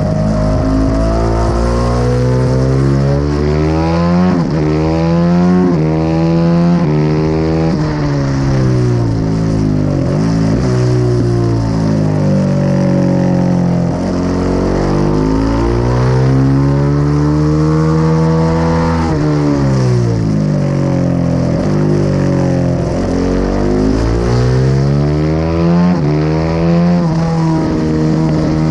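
Honda CRF450RR's single-cylinder four-stroke engine heard onboard at full racing effort, revving up and dropping back over and over as the rider accelerates through the gears and shuts off for corners.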